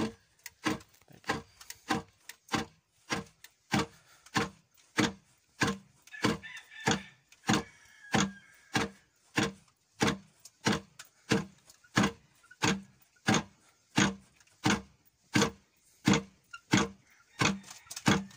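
Foot-treadled wooden rice pounder (khok mong) thudding steadily as its pestle drops into rice in the mortar, about three strokes every two seconds.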